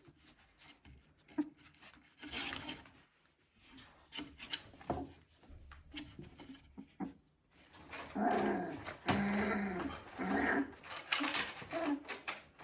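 Three-week-old border collie puppies crying and whining in short pitched squeaks, over scattered scuffling and rustling. The cries grow louder and more frequent in the second half.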